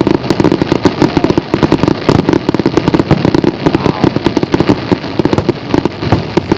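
Fireworks display in a dense, finale-style barrage: rapid bangs and crackling, many a second, without a break.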